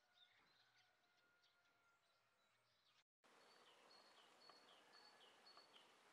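Faint outdoor ambience with birds chirping. After a cut about three seconds in, one bird repeats a short, high, falling note five times, about twice a second.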